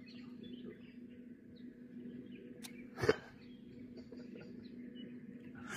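Quiet riverside ambience with faint bird chirps, and one brief sharp sound about three seconds in while a small fish is being lifted on a hand pole.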